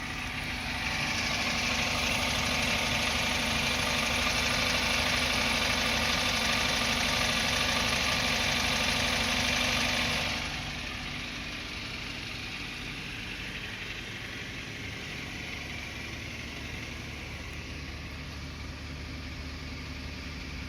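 Daihatsu Terios 2 (Toyota Rush) 3SZ-VE petrol engine running with a diesel-like clatter, which the owner suspects is piston slap. The clatter is louder and sharper from about a second in until about ten seconds in, then quieter and steady.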